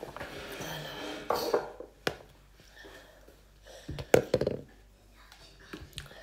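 Off-camera handling noises: a rustle in the first second and a half, then scattered sharp knocks and taps of objects being picked up and put down, a cluster of them about four seconds in.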